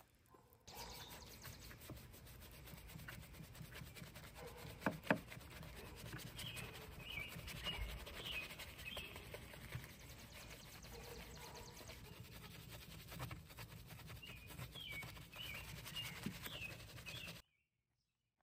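Small bristle detailing brush scrubbing a wet fuel filler door and its hinge: faint scratching and rubbing with occasional light clicks. The sound cuts off about a second before the end.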